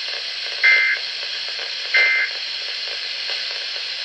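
Weather radio digital data bursts: two short, loud, buzzy two-tone chirps about a second and a quarter apart, over steady radio static.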